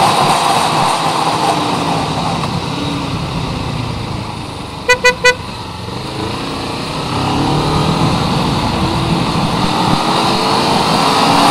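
Three quick horn toots about five seconds in, over the motorcycle's engine and wind noise. The riding noise drops as the bike slows, then builds again as it speeds up.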